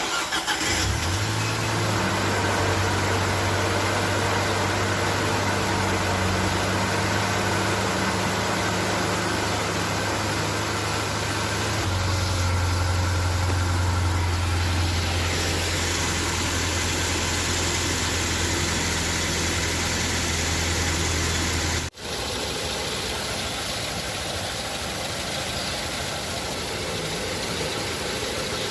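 Nissan Navarra engine starting up and settling into a steady idle. The sound breaks off for an instant near the three-quarter mark, then the idle carries on.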